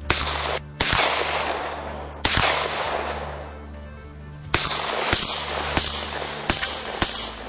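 Saiga-12 semi-automatic 12-gauge shotgun firing about eight shots. The first few are spaced out, each with a long echoing tail, and they are followed by a quicker string of shots a little more than half a second apart. Background music with a low steady tone plays underneath.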